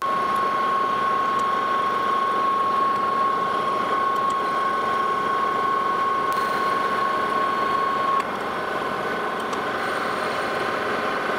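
Metal lathe turning a brass casting while the cutting tool trues up its outside edge: a steady mechanical running and cutting noise with a steady high whine that stops about eight seconds in, where the sound gets a little quieter.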